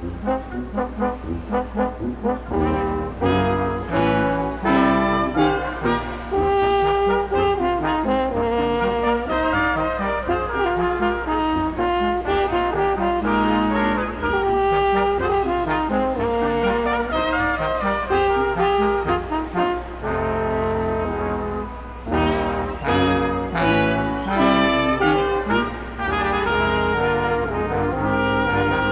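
Brass ensemble of trumpets and trombones playing Christmas music in harmony, with short detached notes at first and longer held chords later.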